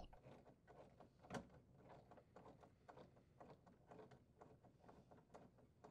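Faint, irregular small clicks of a 1/4-inch nut driver turning out a screw from a refrigerator's upper cover panel, with one louder click about a second and a half in.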